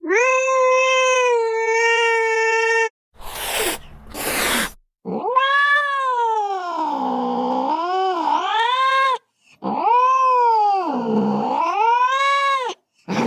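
Domestic cat meowing and yowling: one long, steady meow, then two short noisy bursts, then two long drawn-out yowls that dip and rise in pitch.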